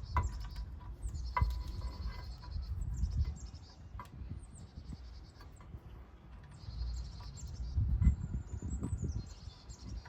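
Birds singing in short, quick trilled phrases, repeated about five times. Underneath are scattered light metallic clicks and low handling thumps from hand work on a brake caliper banjo bolt, the loudest thump about eight seconds in.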